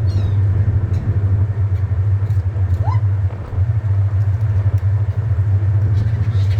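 Steady low engine drone with wind buffeting the microphone, and a brief rising seagull call about three seconds in.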